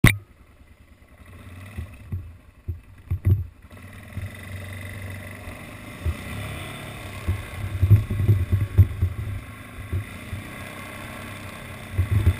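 A sharp click at the very start, then a few thumps. From about four seconds in, an ATV (quad bike) engine runs steadily as it rides along, with irregular low thumps over it.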